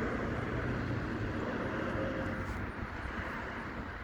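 Outdoor traffic noise: a vehicle going past, a steady rumble that is loudest in the first half and slowly fades.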